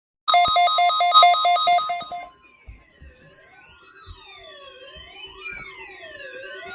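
Electronic alarm tones: a loud, rapidly pulsing beep for about two seconds, then several overlapping siren-like wails that sweep up and down and glide downward, starting quietly and slowly growing louder.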